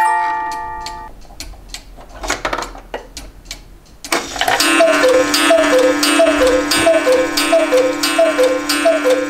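Black Forest cuckoo clock: the last notes of its music-box tune fade out, then the clock ticks. About four seconds in the cuckoo call starts suddenly, a two-note high-low call repeated over and over above a steady hum.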